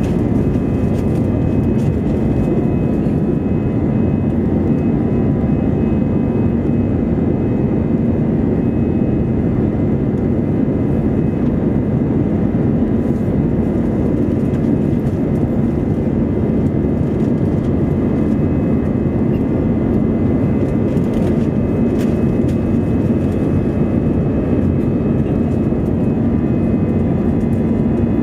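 Steady jet engine and airflow rumble heard inside the cabin of an Airbus A320 climbing out after takeoff, with a low hum and a few faint steady whines over it.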